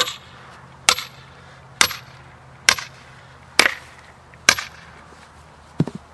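A hammer striking steel splitting wedges in a maple log: six sharp metallic blows about one a second, the first few with a brief high ring, then a duller knock near the end.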